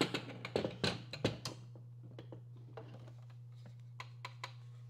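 Sewing machine extension table being pushed and fitted against the machine's bed: a quick run of clicks and knocks in the first second and a half, then a few light ticks, over a steady low hum.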